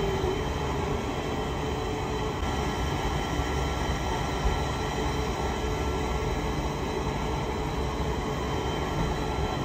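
Steady low rumble with faint, even high-pitched whines inside a tower crane's operator cab; no single event stands out.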